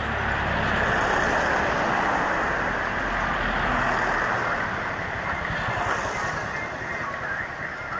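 Steady rushing roar of white-water river rapids, a little louder in the first half.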